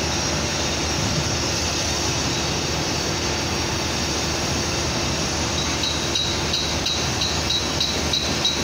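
Steady machinery rumble and hum of a steel-structure construction site. About two-thirds through, a regular series of short, high ticks begins at about three a second.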